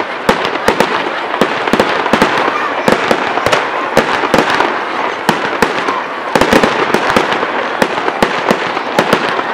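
Aerial fireworks display: a rapid, irregular string of sharp bangs, several a second, over a continuous crackle of bursting shells.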